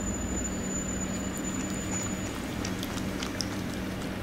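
A small dog licking and taking soup from a plastic spoon: a few faint wet clicks, heard over a steady low hum and hiss.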